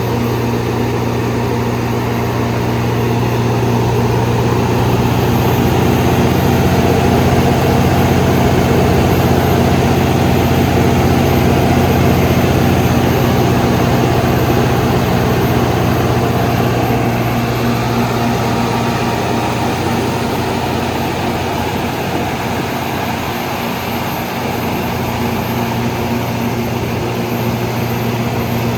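200 kW Katolight diesel generator set running at a steady speed, its engine giving an even, low drone with mechanical noise on top.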